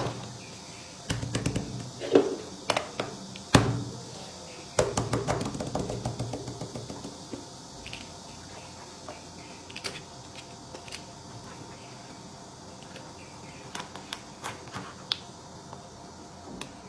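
Silicone pop-it bubbles being pressed, with a fast run of popping clicks about five seconds in, then scattered single pops. Louder knocks come as the toys are set down on the table.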